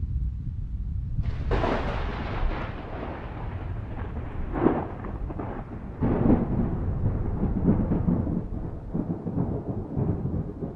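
Thunder: a low rumble, then a sudden sharp crack about a second in that rolls off slowly, with more cracks and rumbling through the middle.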